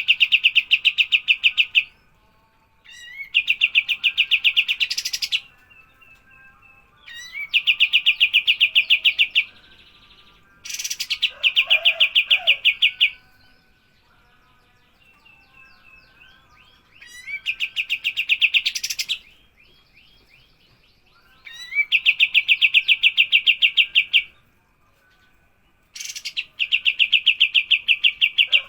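Recorded songbird song used as masteran training material: a high, fast-pulsed trill, each phrase opening with a quick rising note and lasting two to three seconds, repeated seven times with short pauses between phrases.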